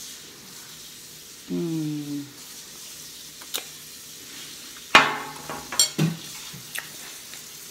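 Metal utensil clinking against a ceramic bowl while eating, with a sharp clink about five seconds in as the loudest sound and two more just after. A short hummed "mmm" of approval about a second and a half in, over a faint steady hiss.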